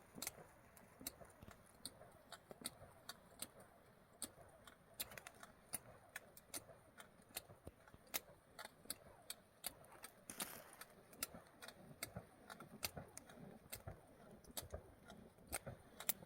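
Firewood and charcoal catching fire, with faint, irregular sharp crackles and pops, several a second, and a stronger crackle about ten seconds in.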